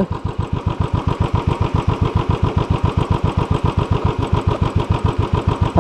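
Single-cylinder motorcycle engine idling with a steady, even thump.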